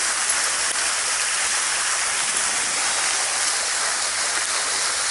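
Steady rushing and splashing of a small waterfall pouring into the reservoir cove.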